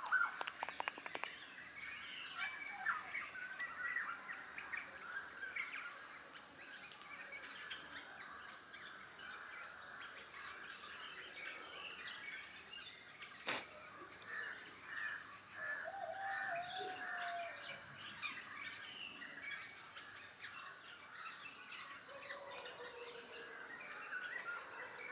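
Small birds chirping and calling, with one sharp click about 13 seconds in. There are two brief whining tones, one about 16 seconds in and a lower, falling one about 22 seconds in.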